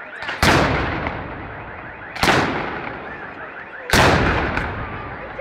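Three loud firework bangs about two seconds apart, each sudden and then dying away over about a second, over a crowd's faint shouting.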